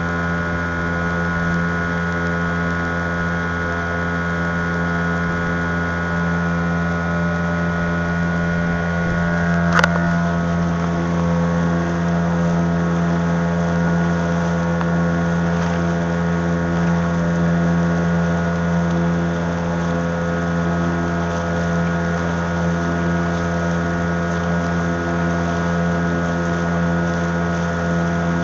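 A small boat's engine runs at a steady, unchanging speed, a constant hum over a haze of water and wind noise. A single sharp click comes about ten seconds in.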